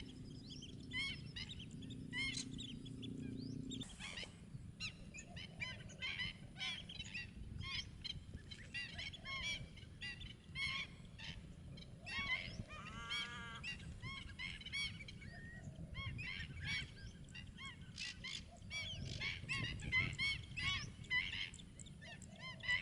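A large flock of migratory birds calling continuously, many short overlapping calls and chirps. A low steady hum underlies the first four seconds and then stops.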